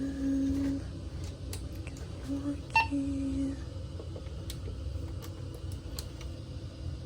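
Short electronic beep tones, three low steady beeps, with a sharp click at about the middle.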